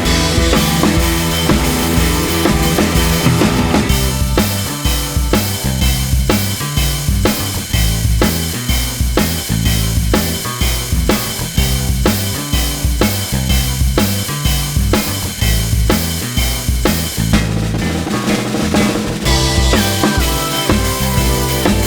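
Background music with a steady drum-kit beat, about two beats a second.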